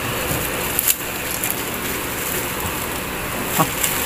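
Busy market ambience: a steady noisy hubbub, with two short sharp clicks, one about a second in and one near the end.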